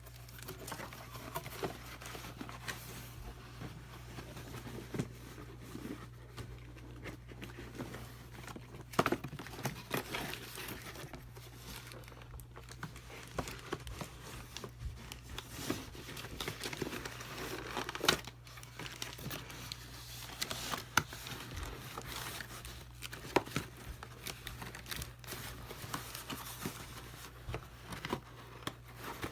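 Plastic packaging crinkling and rustling as a boxed phone set is unpacked by hand, with irregular clicks and knocks of parts being handled, over a steady low hum.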